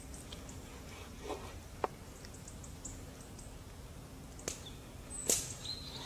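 Knife slicing raw chicken breast on a wooden cutting board, with a soft scrape and a few sharp taps of the blade on the wood, the loudest near the end.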